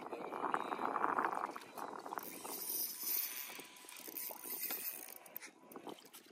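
Fishing reel being cranked against a hooked fish, a fast run of fine ticking from the reel's gears, heaviest in the first couple of seconds and then easing off.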